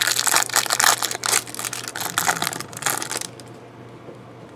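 Crinkling and crackling of plastic trading-card packaging being handled, stopping about three seconds in.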